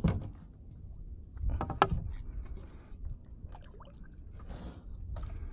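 Water splashing and knocking against a kayak, a few separate sudden splashes over a low rumble, the loudest about two seconds in.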